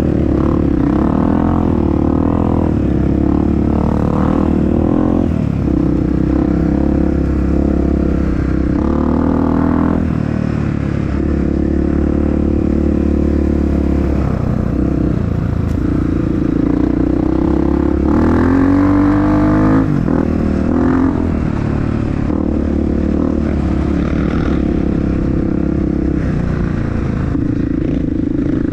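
Honda CRF dirt bike engine running under way on an off-road trail, its revs rising and falling with the throttle, with a sharper rev-up about two-thirds of the way through.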